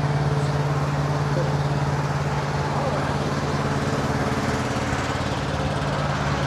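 An engine idling steadily, a constant low drone that does not change in pitch or level.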